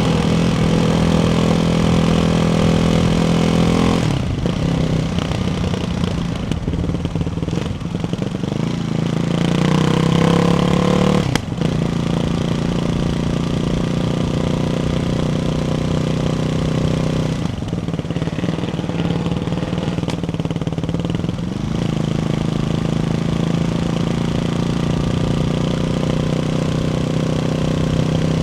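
Ducati Hypermotard 698's single-cylinder engine through a baffled Termignoni exhaust, running under way at changing revs. The pitch climbs for a couple of seconds about nine seconds in and drops suddenly just after eleven seconds, with further shifts in pitch later.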